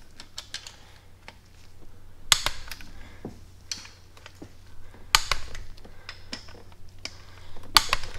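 Torque wrench clicking three times, a few seconds apart, as it breaks at its 22 foot-pound setting on the LS1 V8's rocker arm bolts. The bolts are still holding their torque.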